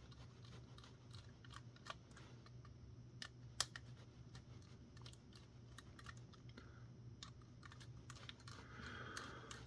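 Faint, irregular small clicks and ticks of a screwdriver and small parts as screws are worked out of a film camera, with one sharper click about three and a half seconds in.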